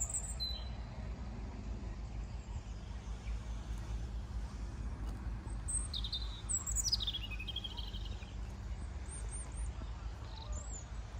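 Small birds chirping in scattered short high calls, including a quick falling run of notes about seven seconds in, over a steady low rumble.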